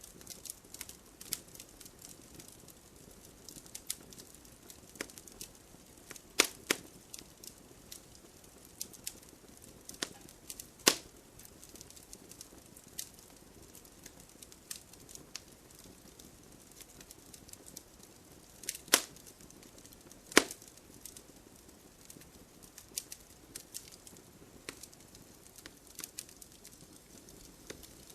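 Wood fire burning in a fireplace, crackling with many small sharp snaps and a few louder pops, over a faint low hiss.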